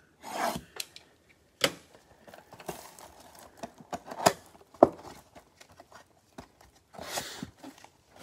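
A cardboard trading-card box being cut open with a small safety cutter and opened by gloved hands: short scrapes and a few sharp clicks and taps of cardboard, the loudest about halfway. Near the end comes a rustle as the box flap and paper insert are pulled back.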